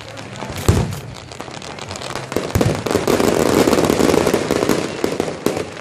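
Aerial fireworks: one sharp bang about a second in, then from about two seconds a dense barrage of rapid bursts and crackling, easing off near the end.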